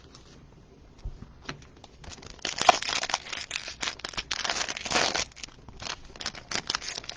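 Foil trading-card pack wrappers being torn open and crinkled by hand, with a few light clicks of card handling. It is sparse for the first couple of seconds, then continuous irregular crinkling and rustling.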